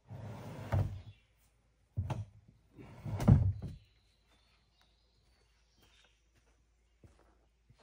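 Plastic kayak hull sliding and knocking onto a wooden rack: a scrape of about a second, a knock about two seconds in, then the loudest scraping thump a little after three seconds as the boat settles.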